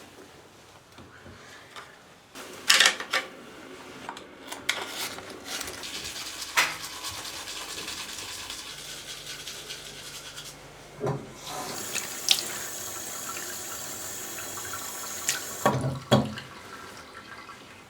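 Tap water running into a sink, with clicks and knocks of things being handled. The flow gets stronger about twelve seconds in and is turned off abruptly a few seconds later.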